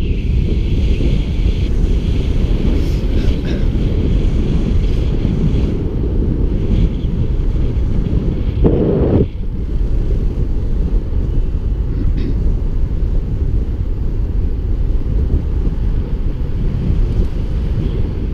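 Wind buffeting the microphone of a camera on a moving road bicycle: a steady low rumbling rush, with a stronger gust about nine seconds in.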